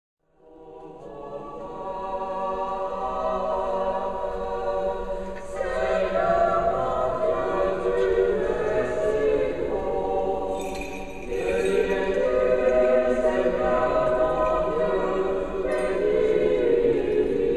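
Choir singing unaccompanied Byzantine-rite liturgical chant, in long held phrases. It fades in about half a second in, with short breaths between phrases.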